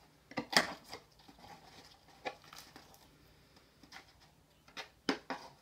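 A cardboard baking soda box being handled and opened, with several short sharp taps and rustles scattered through, over a faint steady low hum.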